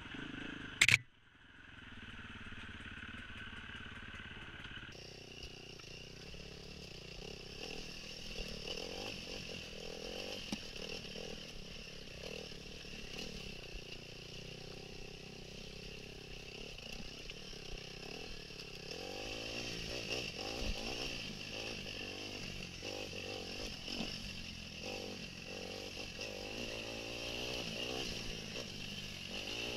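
Off-road dirt bike engine heard from the rider's helmet, running along a rocky trail with wind noise and clatter, its revs rising and falling more in the second half. One brief, loud bang about a second in.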